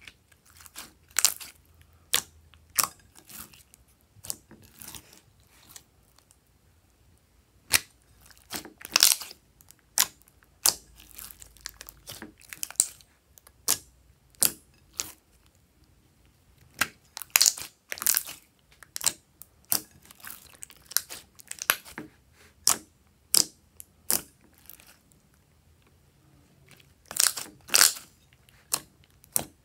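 Hands squishing, stretching and kneading a large mass of glossy slime: irregular sticky clicks, pops and crackles as it is squeezed, folded and pulled apart, coming in clusters.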